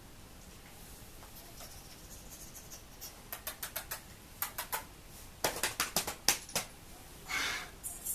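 Quick runs of light clicks and taps, growing louder through the middle, then a short rustle near the end.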